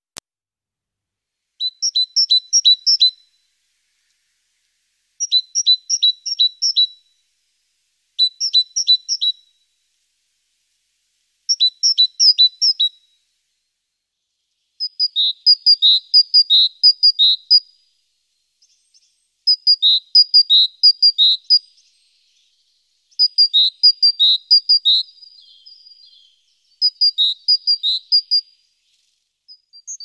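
Great tit singing its repeated two-note song in short phrases of a second or two, a few seconds apart; about halfway through the phrase changes to a different, lower note pattern.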